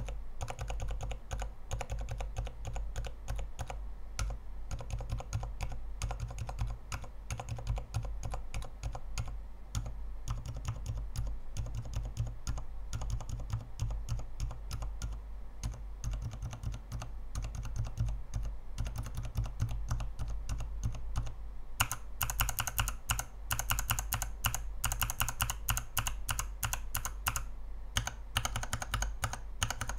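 Mechanical keyboard switches on an acrylic-based switch tester with dye-sub XDA keycaps, pressed rapidly over and over, a dense run of clacks. About two-thirds of the way through, the clacks turn sharper and louder, as a different switch is tried.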